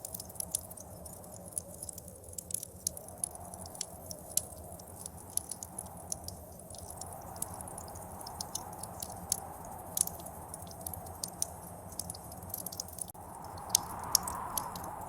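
Wood fire crackling with irregular sharp pops, over a howling blizzard wind that swells in gusts, the strongest gust near the end.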